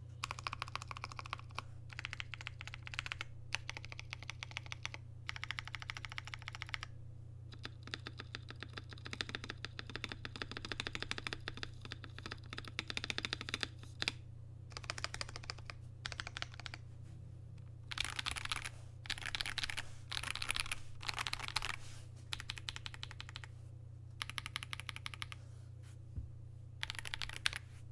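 Typing on a KBD67 Lite 65% custom mechanical keyboard fitted with nearly stock Akko CS Ocean Blue switches on a polycarbonate plate. The keystrokes come in quick runs of a second or more, with short pauses between them, over a steady low hum.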